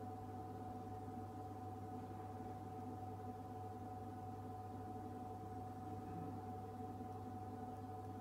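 Refrigerated drinks vending machine running with a steady hum: a low drone with a clear higher tone held above it and a few fainter tones, unchanging throughout.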